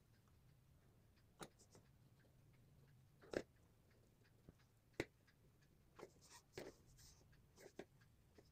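Faint scratching and tapping of a black felt-tip pen drawing on thin paper, a few scattered sharp ticks among it, the loudest two at about three and a half and five seconds in.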